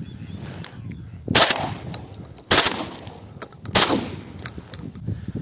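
Three shotgun shots about a second and a quarter apart, each trailing off briefly.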